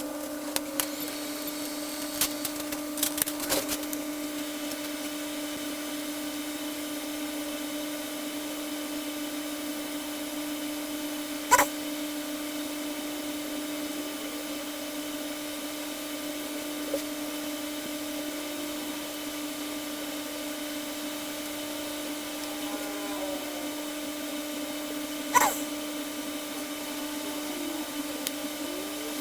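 Steady hum of a small electric fan or blower on a microsoldering bench, holding one pitch. A few light clicks come in the first few seconds, and two sharper clicks come later, one about a third of the way in and one near the end.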